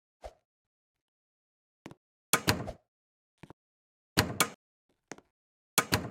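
Sharp knocks and clatters of hard objects, in three loud clusters of two or three hits about two seconds apart, with a few fainter clicks between.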